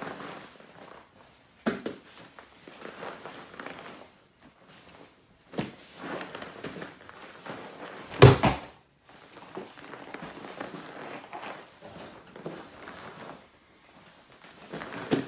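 Bodies thudding onto vinyl-covered foam mats, with rustling of gi cloth as two grapplers drill a guard sweep. A few scattered thumps, the loudest about eight seconds in as one man is swept over onto the mat.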